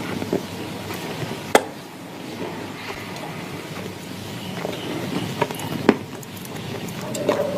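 Close-up chewing of dry clay in clay paste: moist, crunchy mouth sounds with scattered small crackles and two sharp crunches, about one and a half seconds in and about six seconds in.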